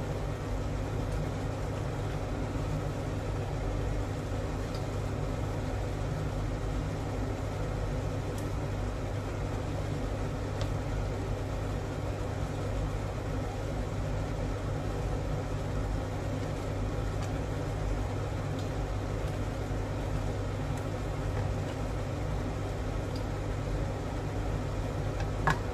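Steady low hum of a running kitchen appliance, with a few faint clicks of a wooden spoon against a stainless steel pan as boiling strawberry jam is stirred.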